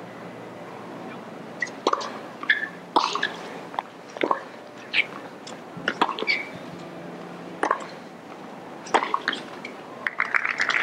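Tennis rally on a hardcourt: a serve about two seconds in, then sharp pops of rackets striking the ball and the ball bouncing, about one a second. A denser patter of applause begins near the end.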